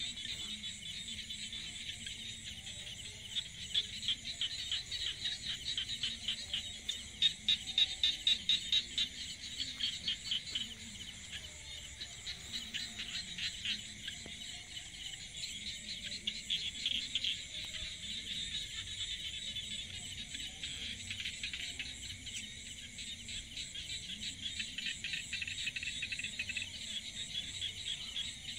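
Chorus of insects trilling in dense, very rapid pulses, steady throughout and swelling louder for a few seconds near the start.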